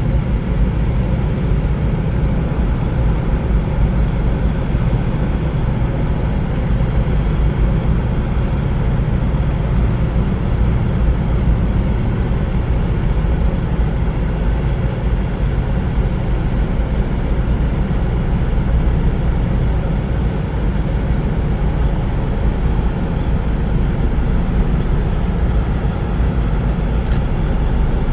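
A loud, steady low rumble with no break, heaviest in the deep bass.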